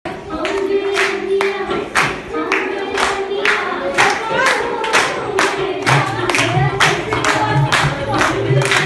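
A group of women singing together and clapping in rhythm, about three claps a second. A low beat joins about six seconds in.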